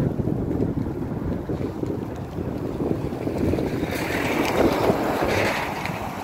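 Wind buffeting the phone's microphone over a low rumble, swelling into a louder hissing rush from about four seconds in.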